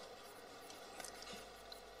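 Near silence: faint room tone of a hall, with a faint tick about a second in.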